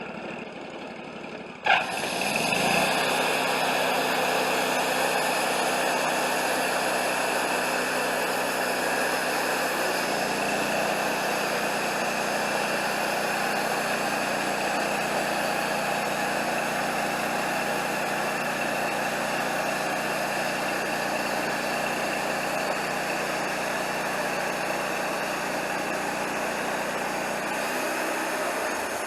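Wood-Mizer LT40 portable bandsaw mill: the engine is running, then with a sharp clack about two seconds in the band blade engages and a loud, steady sawing hiss joins the engine as the blade cuts through a maple log. The hiss dies away at the very end.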